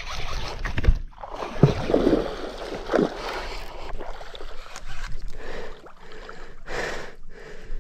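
Water sloshing and splashing around a small fishing boat, with a few short sounds falling in pitch about two and three seconds in.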